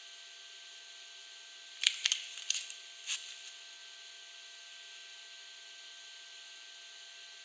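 A soap's packaging being handled: a quick cluster of sharp crinkles and taps about two seconds in, lasting a second and a half, over a steady faint hiss.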